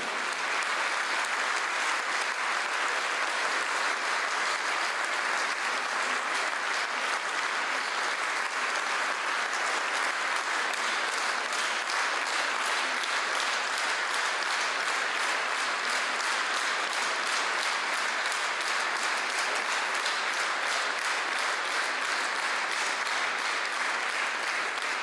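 Sustained applause from a large audience, setting in at the start and holding at an even level.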